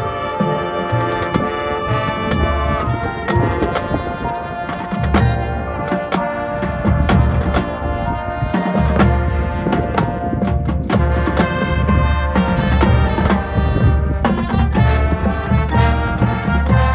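High school marching band playing: brass section holding and moving through chords over a drumline with a steady beat.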